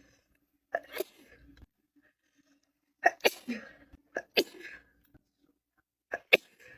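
A woman sneezing several times, each sneeze a short, sharp burst with quiet gaps between.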